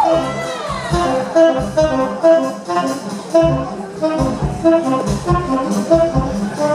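Live jazz-fusion band playing: short staccato horn-section notes in a rhythmic riff over bass and drums, with a falling pitch slide right at the start.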